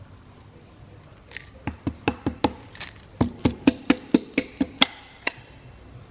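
A piston being tapped down through a piston ring compressor into a cylinder bore of an Audi 2.5 TFSI five-cylinder block: a quick run of about a dozen sharp taps, some four a second, starting about a second and a half in. The piston is stiff and hard to get into the bore.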